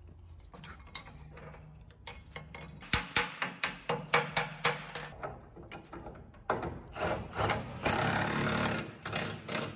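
A steel hammer beats a bent steel hinge-mount bracket flat against a steel welding table, in a fast run of sharp metal strikes, about five a second for two seconds. Near the end a cordless power tool runs in bursts on the truck's sheet-metal body.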